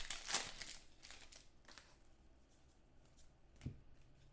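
Trading cards and pack wrappers being handled: a burst of crinkling in the first half-second, then a few fainter rustles and a single click near the end.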